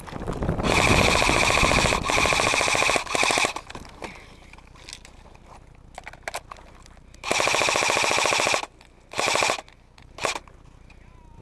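Electric airsoft rifle firing full-auto bursts, a rapid even rattle of shots over the gearbox whine. A long burst with short breaks near the start, then after a pause of a few seconds two more bursts and a brief one near the end.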